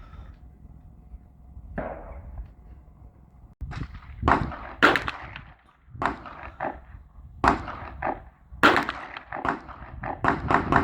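Handgun shots at a firing range: a single shot about two seconds in, then a run of shots a fraction of a second to a second apart, quickening into fast strings near the end.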